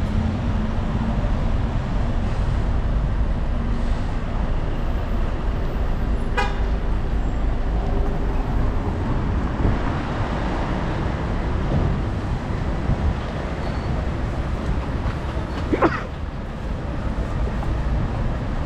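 Steady rumble of city road traffic, with a short vehicle horn toot near the end.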